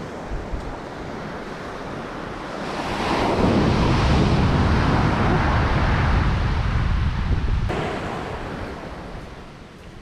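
Surf on a pebble beach with wind buffeting the microphone: a wave swells about two and a half seconds in, stays loud for several seconds, then fades away near the end.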